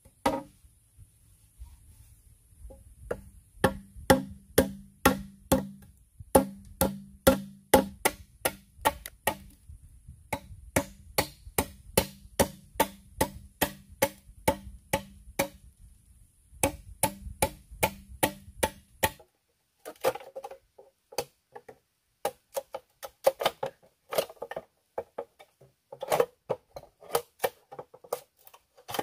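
A blade chopping into green bamboo in a steady rhythm, about two or three strokes a second, over a steady high hiss. After a break near the middle, a looser run of sharper, ringing knocks as a bamboo pole is worked and split.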